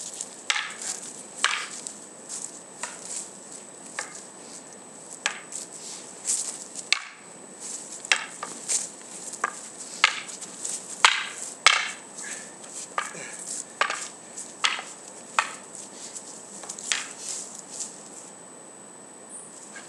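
Wooden practice swords (bokken) clacking together in quick, irregular strikes during sparring, thinning out near the end.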